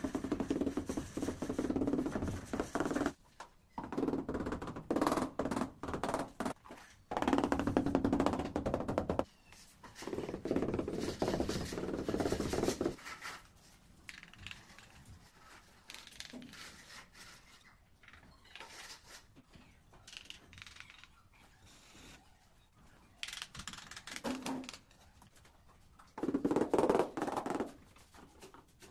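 Rubber mallet tapping ceramic wall tiles to bed them into the adhesive, in about six runs of rapid dull taps lasting two to three seconds each. A quieter stretch of scattered light clicks lies between the runs.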